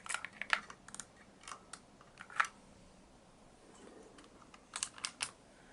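Light, irregular clicks and taps of small plastic and metal model-car parts being handled and fitted by hand, in scattered groups with a quiet stretch in the middle.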